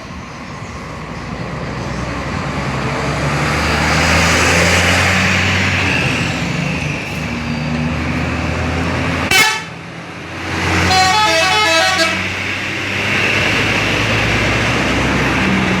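Bus diesel engine running, growing louder over the first few seconds. Just past halfway comes a short loud blast, then the bus's telolet air horn plays a quick run of alternating tones for about a second.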